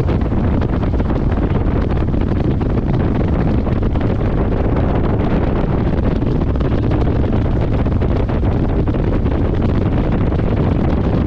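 Steady wind buffeting on the microphone of a motorcycle-mounted camera, mixed with the motorcycle's engine and road noise as it rides along.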